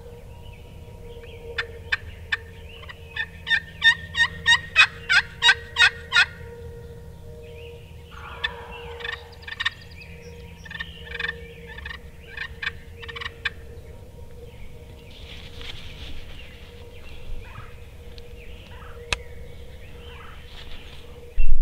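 Turkey calling: a run of about a dozen short, evenly spaced notes that grow louder, then a fainter, more broken series of calls.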